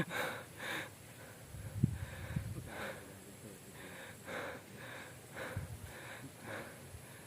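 A man breathing hard and fast, a puff about every half second to second, as he climbs uphill carrying a load of harvested rice. Faint low knocks come in between.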